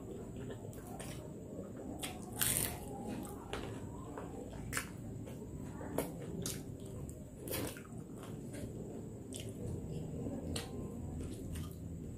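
A person chewing crispy fried crablets and rice close to the microphone: wet chewing and smacking, broken by a series of sharp crunches, the loudest about two and a half seconds in.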